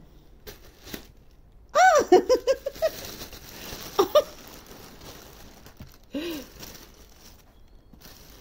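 A person giggling in high-pitched bursts: a quick run of short laughs about two seconds in, two more short ones about four seconds in and a single lower one about six seconds in. Light rustling and crinkling of satin gift wrapping and plastic balls lies beneath as kittens play in the box.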